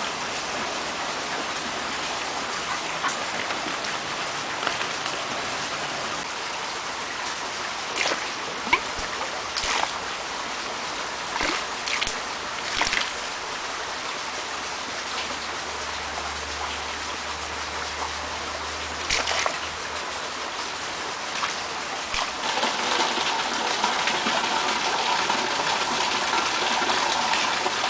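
Steady running water from a small homemade pulser pump, its supply flowing at about 30 litres a minute through a 40 mm waste pipe, with a few brief splashes. About twenty-two seconds in, the water gets louder and fuller.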